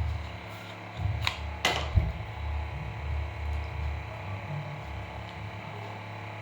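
Handling noise as an Apple Watch charger and its packaging are picked up and turned over: low rubbing bumps on the microphone for several seconds, with two sharp plastic clicks about a second and a half in.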